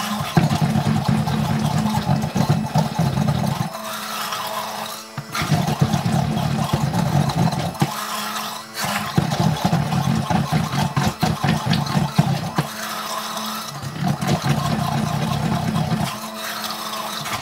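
Electric stick blender running in a plastic pitcher of soap batter: a steady motor hum with four longer stretches of heavier churning and rattling as the blade head is worked through the batter, easing to the plain hum between them.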